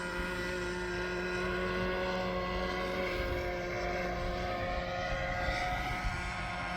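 Motor and propeller of a foam RC model plane built as a flying lawnmower, droning steadily in flight, its pitch drifting slowly with the throttle.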